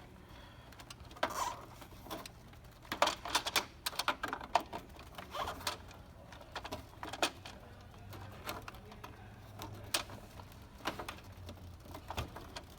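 Irregular clicks, taps and knocks of a flathead screwdriver prying plastic parts loose inside an ice maker, thickest about three to five seconds in.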